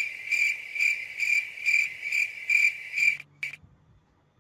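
Cricket chirping: a high, steady trill pulsing about twice a second, which stops about three seconds in and is followed by one short chirp.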